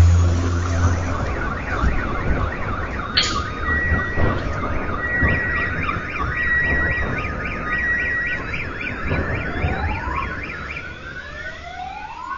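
Car alarms going off after nearby shell explosions: repeating warbles, an on-off beeping tone and rising wails, over the low rumble of a blast dying away in the first second. A sharp crack about three seconds in.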